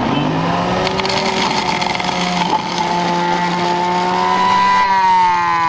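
Electric juicer motor running steadily while pressing pomegranate juice, its pitch sliding down near the end as the motor winds down.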